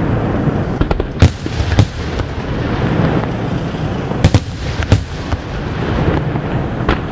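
Aerial firework shells bursting. Four sharp, loud bangs come about a second in, just before two seconds, and twice between four and five seconds, over a steady deep rumble of further bursts.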